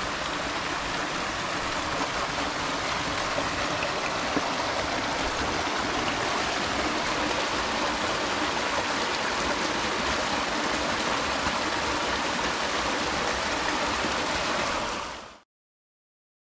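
Mountain stream running over smooth lava rock, small waterfalls splashing into rock pools with a steady rushing sound. It fades out about a second before the end, leaving silence.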